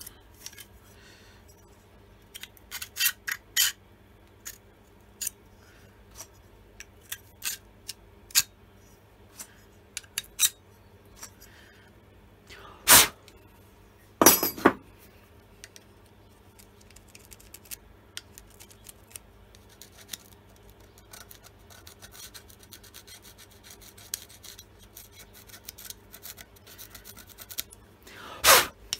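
A metal tool scraping and clicking in the groove of a Stihl MS170 chainsaw guide bar, cleaning out packed dirt, in short irregular strokes with a few louder scrapes around the middle and near the end.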